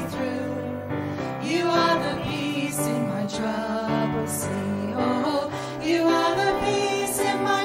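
Contemporary worship song: voices singing over sustained instrumental backing.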